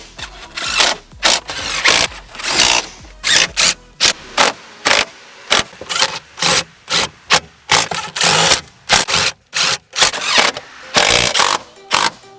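A power tool run in many short, irregular bursts, several a second, with knocks and clatter of parts in between.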